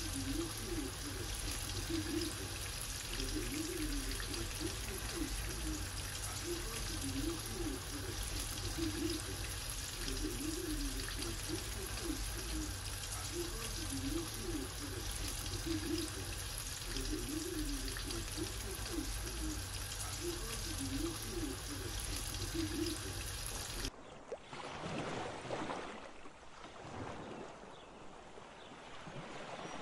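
Battered squid pieces deep-frying in a pan of hot oil: a steady sizzling hiss that cuts off suddenly about 24 seconds in, leaving a quieter, duller sound.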